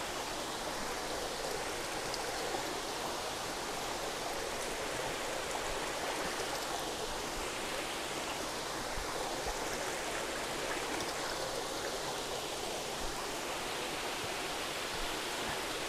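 Steady rush of water spilling from the return pipes into the fish vats of a recirculating aquaculture system.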